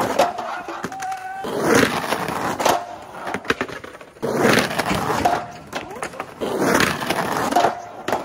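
Skateboard trucks grinding along a painted curb in slappy grinds, mixed with wheels rolling on the ground. It comes in several loud rushes about two seconds apart.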